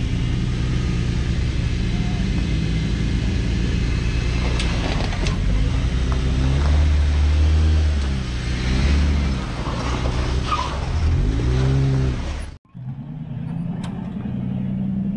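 Off-road 4x4's engine revving up and down under load as it crawls over rock, with a few sharp knocks. The sound breaks off abruptly about twelve seconds in, then a quieter engine runs on.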